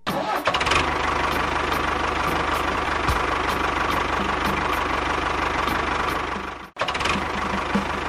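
Tractor engine running steadily with a fast, even knocking beat. It cuts off abruptly near the end and comes straight back a moment later.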